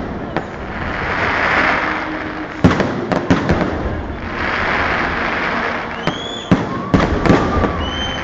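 Fireworks display: aerial shells bursting with sharp bangs, a cluster about two and a half seconds in and another from about six seconds in, between swells of hissing crackle from the glittering stars. A whistling tone sounds near the end.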